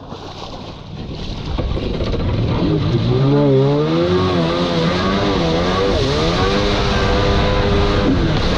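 Jet ski engine revving up and running hard through tight turns, its pitch wavering up and down, over the rush of wind and spray on the microphone.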